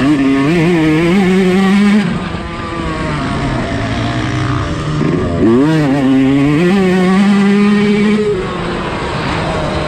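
Yamaha YZ125 single-cylinder two-stroke motocross engine revving up and down under riding load. It holds high for the first two seconds and is lower through the middle. About six seconds in it dips and climbs again, then backs off a little after eight seconds.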